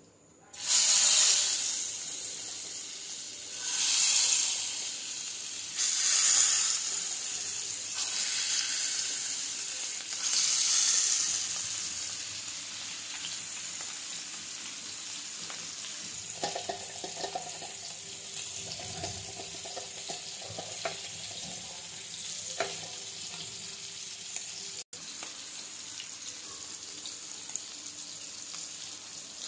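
Hilsa fish steaks going into hot oil in a frying pan: five loud surges of sizzling in the first eleven seconds as the pieces hit the oil, then the fish frying with a steady, quieter sizzle.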